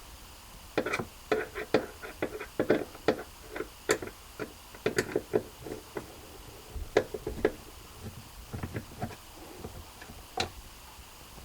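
A run of irregular light clicks and knocks of hands and a tool handling hard objects, starting about a second in and coming in quick clusters, with a few separate ticks near the end.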